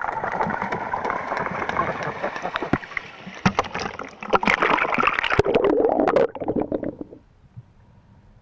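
A swan running across the river surface to take off, its feet and wings slapping the water in a rapid splashing patter that stops about seven seconds in.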